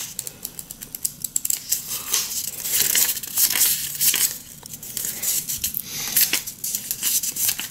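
Paper rustling as the pages of a small instruction booklet are flipped through by hand: a long run of quick, crisp flicks and rustles.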